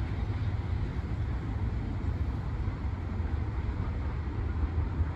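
Steady low rumble of a freight train of hopper cars rolling away down the track.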